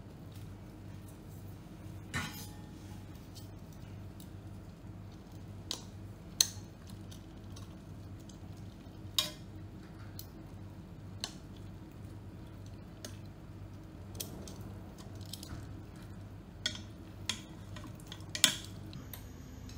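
Wooden chopsticks and metal tongs knocking and clinking against the inner pot of a Ninja Foodi pressure cooker while handling braised pork trotters in sauce. The sharp clinks come at irregular intervals of a second or two, over a steady low hum.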